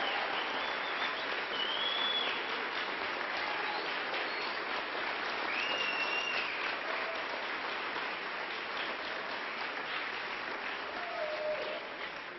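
Large audience giving a standing ovation: sustained applause with a few high calls over it, dying down at the end.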